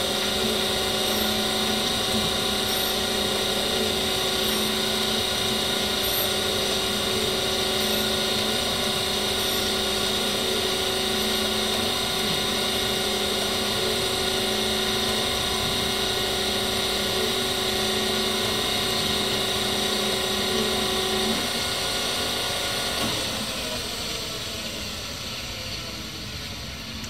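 Brown & Sharpe Micromaster 618 surface grinder running under power, its motors humming steadily with several constant tones while the table travels on its hydraulic feed. About 21 s in one tone drops out, and over the last few seconds the running sound thins and fades away.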